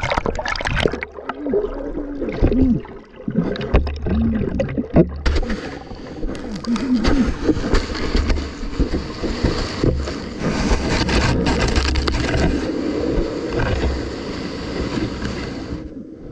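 Ocean surf churning and splashing right at the microphone, with gurgling water. About five seconds in a heavier, steady rush of breaking wave water takes over, then cuts off just before the end.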